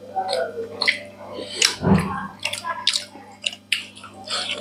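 Close-miked eating sounds: people chewing and smacking their lips while eating rice and curry with their hands, a run of short wet clicks and smacks, with one dull low thump about two seconds in.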